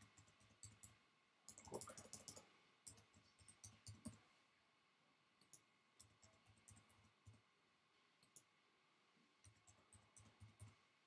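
Faint computer keyboard typing: several quick bursts of key clicks, with a sparser stretch in the middle and another burst near the end.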